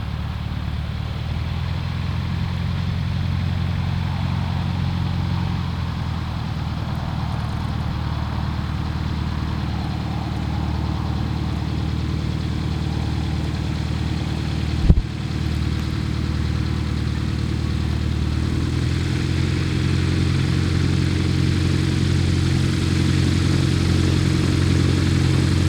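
Light aircraft piston engine running steadily at low power, growing a little louder in the last several seconds. A single sharp knock sounds about halfway through.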